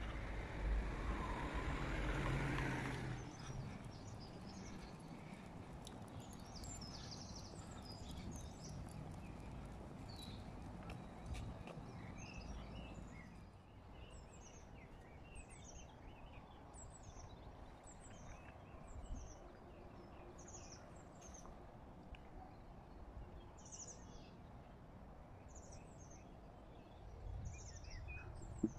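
Quiet outdoor street ambience: a louder low rumble for about the first three seconds, then a faint steady background hum. Small birds chirp over it, with many short, high-pitched calls repeated through the second half.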